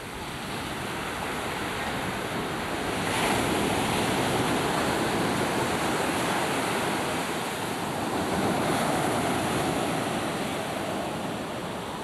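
Small sea waves breaking and washing up a sandy beach, a steady surf noise that swells louder about three seconds in and again after about eight seconds.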